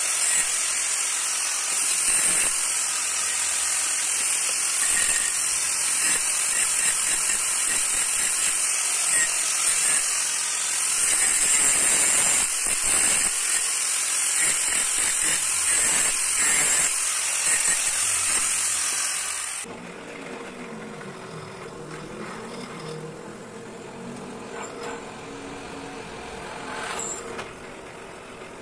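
Angle grinder grinding the welded bends of steel T-profile bars, a loud steady grinding hiss. It cuts off suddenly about twenty seconds in, giving way to a quieter steady machine hum.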